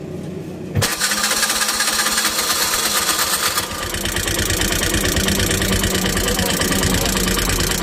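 A CNG auto-rickshaw engine with a newly fitted 225 cc carburettor catches about a second in and runs with a rapid, even beat. A little before the middle its note changes, settling into a deeper idle.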